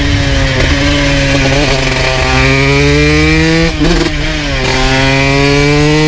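2002 Honda CR125 two-stroke motard engine with an FMF full exhaust, pulling under throttle on the move, its note climbing steadily. It breaks off briefly about four seconds in, then climbs again.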